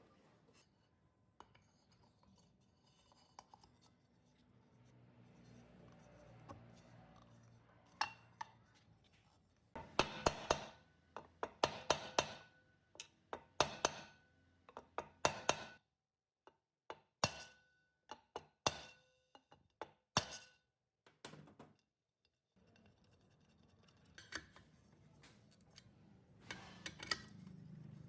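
A run of sharp clinks and taps from hard parts being handled and set down, some ringing briefly, packed most densely through the middle, with softer handling and rustling before and after.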